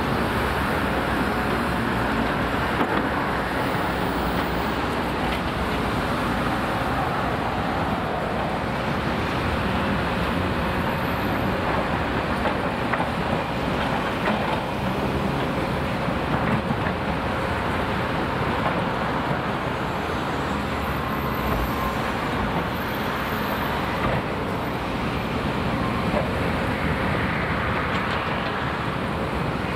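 Heavy excavator engines running steadily, with a few faint knocks.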